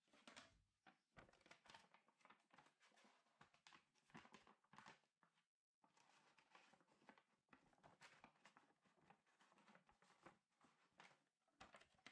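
Near silence, with faint scattered taps and rustles of folded paper strips being handled. The sound drops out completely for a moment about five and a half seconds in.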